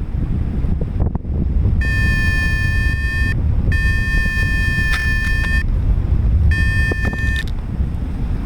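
Wind rushing over the microphone in flight, with three long, steady electronic beeps at one pitch from a paraglider's flight instrument, the second the longest. The pilot takes them as a sign that the vario may have failed.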